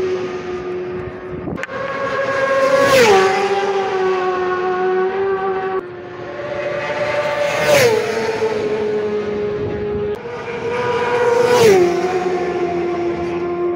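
Superbike racing motorcycles passing flat out one after another, three passes, each engine note dropping sharply in pitch with a brief loud peak as the bike goes by. Between passes the sound breaks off abruptly.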